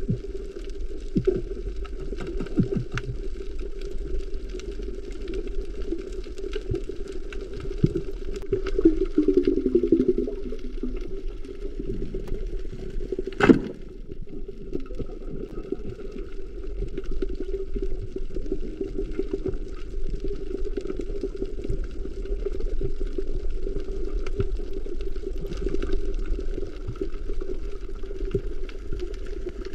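Underwater sound picked up by a camera on a coral reef: a muffled, steady water noise with a low hum beneath it and scattered small clicks and crackles. One loud, sharp crack comes about halfway through.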